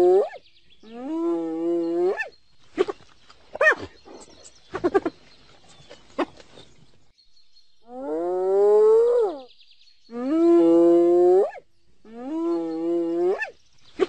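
Spotted hyena calling: long, loud whoops, each lasting about a second and a half and rising in pitch at the end, two near the start and three in the second half. Between them come a few short, sharp yelps.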